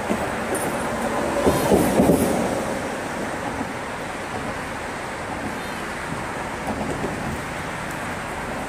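Steady rumbling road noise with a vehicle passing, loudest about two seconds in.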